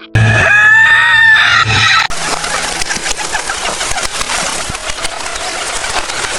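A rooster crowing once, a single long call of about two seconds, then the dense, continuous clucking and scratching noise of a flock of chickens.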